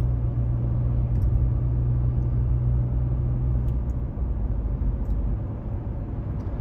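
Road and engine noise inside the cabin of a car driving at highway speed: a steady low rumble, with a deeper hum that is strongest for the first few seconds and then eases off.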